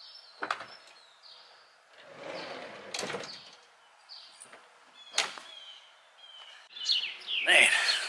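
A minivan's sliding side door rolling open with a rush and clunking into its open stop about three seconds in, with single clicks before and after, while birds chirp faintly.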